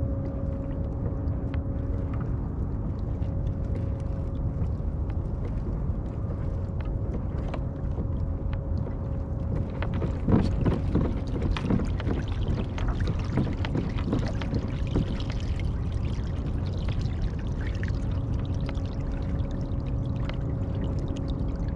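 Water swishing and lapping against a kayak hull as the kayak moves, over a steady low rumble, with a faint steady hum. A cluster of louder splashes and knocks comes about ten seconds in.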